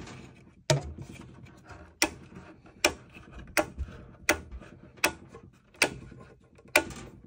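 Rocker switches on a Reliance Controls 10-circuit manual transfer switch being flipped one by one from line to generator: eight sharp clicks, about one every three-quarters of a second.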